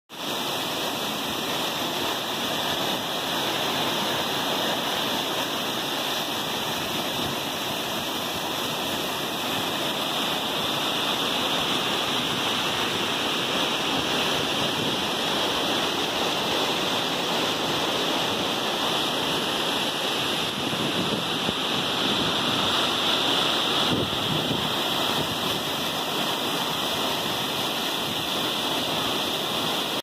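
A waterfall rushing steadily as water pours over a smooth rock slab into a pool.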